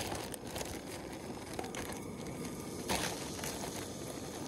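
Fish pieces frying in hot peanut oil in a pot, a steady sizzling crackle, with a brief louder noise about three seconds in.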